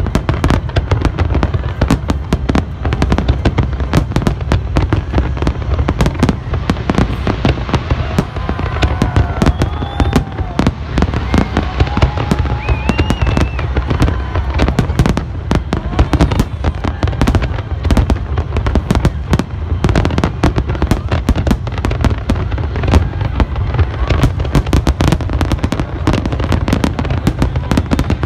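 Large fireworks display going off in a dense, continuous barrage: rapid overlapping bangs and crackles with deep booming, many per second and without a pause.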